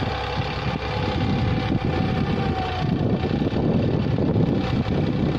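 Diesel tractor engine running steadily under load while pulling a tine cultivator through dry soil. A thin steady whine sits over the rumble and fades out about three seconds in.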